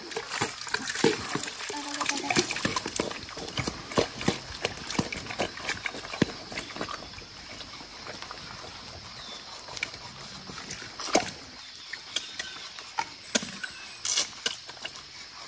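Wild boar eating wet feed from a bowl, with more feed scooped in from a bucket: a busy run of wet smacking and slopping clicks that thins out after the middle, with a few sharper knocks later.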